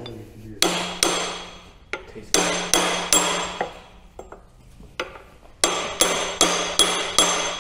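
Hand hammer striking a brass punch against the faceplate of a log splitter's hydraulic cylinder, driving the faceplate in to reach the C-clip behind it. About ten sharp metal strikes come in three groups of two, three and five. Each strike leaves a short metallic ring.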